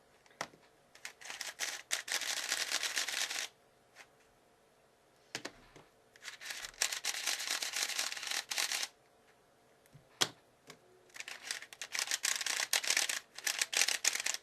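YUGA plastic speedcube being turned fast by hand, its layers clacking in three runs of rapid clicks separated by short pauses, with a single sharp click in the second pause.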